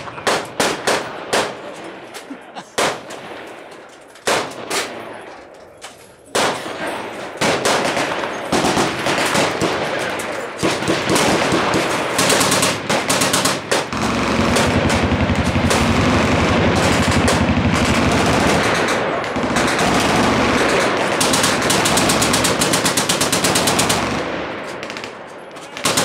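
Machine-gun fire from several guns along a firing line. Single shots and short bursts come first, then about halfway in the fire becomes near-continuous for about ten seconds before thinning out near the end.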